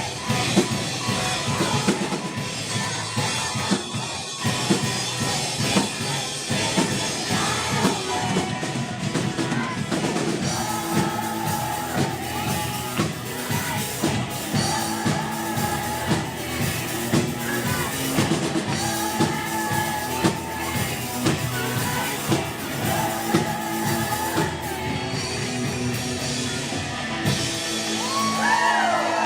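Upbeat rock-style song with a singer and a drum kit.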